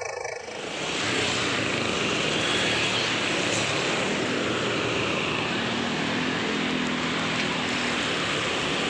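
Heavy road traffic passing close: a steady rush of engine and tyre noise that rises sharply about half a second in.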